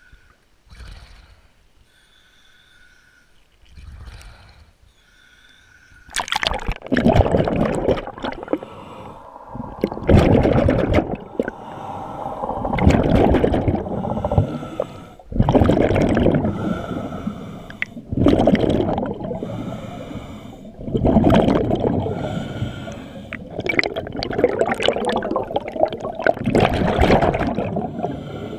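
A diver's exhaled air bubbling out underwater, heard through an underwater camera: gurgling rushes about every three seconds, starting about six seconds in.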